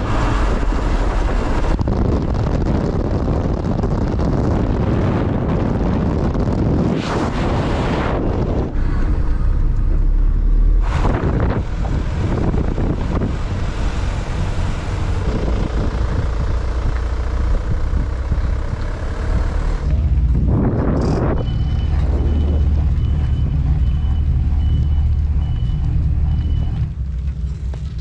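A vehicle on the road: a steady low rumble of engine and road noise with wind, a few short loud rushes, and a repeated beeping for several seconds near the end.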